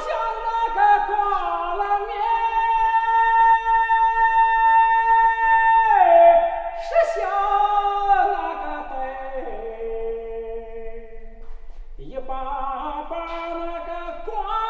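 A man singing an unaccompanied folk song in a high, carrying voice. He holds one long note for about four seconds, then slides down through the phrase. Near the end there is a short break for breath before the next line begins.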